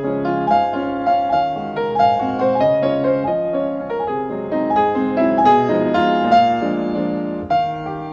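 Background piano music: a gentle melody of struck notes over chords.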